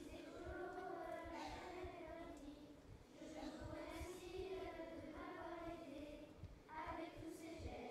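A child singing a French song, held notes in phrases with short breaks about three seconds in and near the end.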